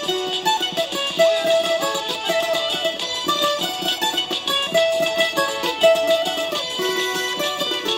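Bandolín with paired metal strings, picked rapidly to play a melody of held notes, accompanying a recording of the song.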